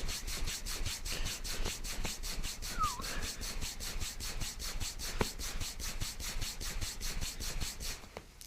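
Rapid, even rubbing strokes of hands massaging a client's shoulders and back, about five strokes a second, that stop abruptly near the end. A single sharp click comes about five seconds in.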